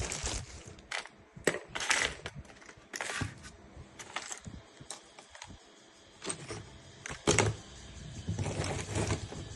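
Irregular clicks, taps and short scrapes of small hard objects being handled, as of tools and parts on a workbench, with the sharpest click about seven seconds in.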